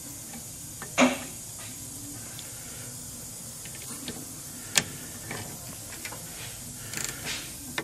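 A few sharp clicks and knocks of a wrench and socket on a clamp-style caliper piston tool, which is being used to turn a rear brake caliper piston back in, over a steady faint hiss. The loudest click comes about a second in and another near the middle.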